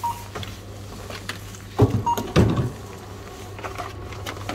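Supermarket checkout scanner beeping twice as items are scanned, about two seconds apart. Goods knock and clatter on the counter around the second beep, over a steady low hum.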